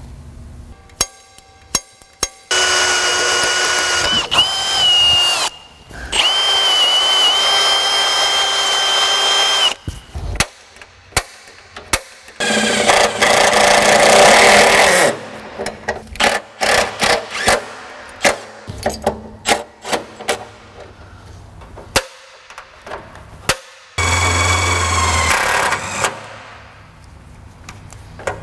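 Milwaukee cordless drill running in four bursts of a few seconds each, a steady whine, as it drills and drives screws into the truck's steel radiator support. Short clicks and taps of handling the parts come between the runs.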